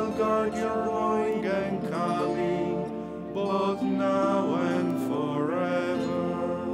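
Liturgical chant sung by a cantor's voice in short melodic phrases over held accompanying chords.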